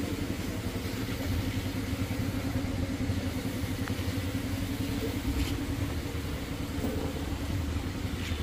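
A small engine running steadily in the background, with a fast, even throb and no revving.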